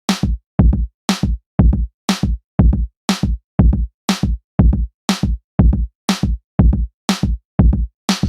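Background music with a steady electronic drum beat, about two beats a second.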